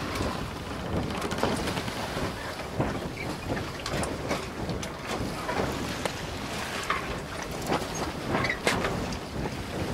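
Steady rushing noise aboard a moving canal tour boat: wind buffeting the microphone and water moving along the hull, with scattered small clicks and knocks.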